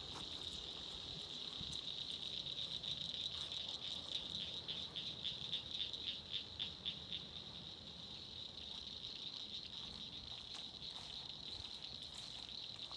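Evening chorus of insects calling: a steady high trill, with a louder pulsing call of about four to five pulses a second standing out in the middle.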